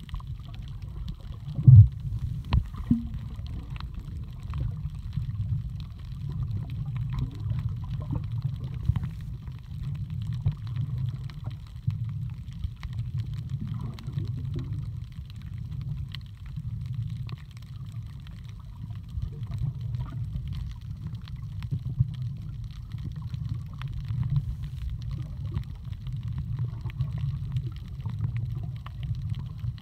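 Muffled underwater rumble of water moving around the camera, uneven and low-pitched, with one sharp knock about two seconds in.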